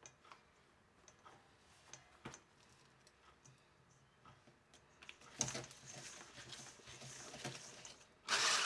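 Electric hand mixer with wire whisk beaters in a stainless steel bowl, beating an egg into creamed butter and sugar. First a few light clicks of the beaters against the bowl, then about five seconds in the motor starts running with a low hum, and near the end it turns much louder.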